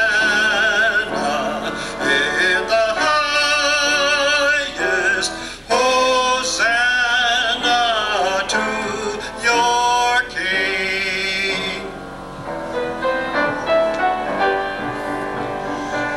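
A man singing a solo in a trained style, with strong vibrato on long held notes, over piano accompaniment. The voice stops about twelve seconds in and the piano plays on alone.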